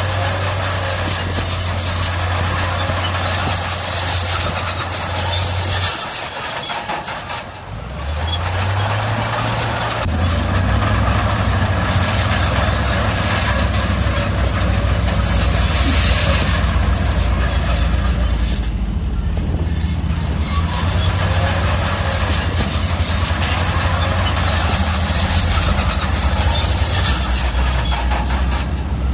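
Shantui crawler bulldozer's diesel engine working under load, with a metallic clatter of the tracks over it. The engine note drops about six seconds in, then climbs back up and runs on steadily.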